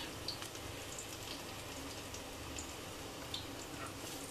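Onion pakoras deep-frying in hot oil in a kadai: a faint, steady sizzle with scattered small pops and crackles.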